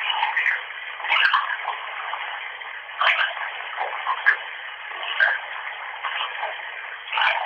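Bathwater running from a tap, a steady rushing hiss with irregular splashy surges every second or so, sounding thin and tinny as recorded through a mobile phone's narrow-band microphone.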